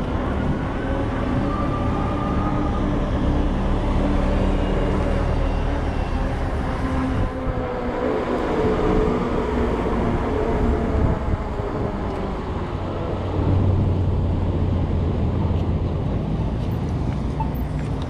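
Road traffic: motor vehicle engines running and passing, with a steady low hum and engine tones that shift in pitch over a continuous noise.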